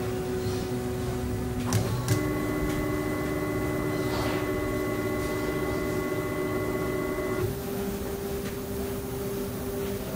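Stepper motors of a homemade 3D printer whining as it runs an auto-home, the pitch changing as the axes move in turn. There are two sharp clicks about two seconds in, a higher whine until about seven seconds in, and then a lower steady whine.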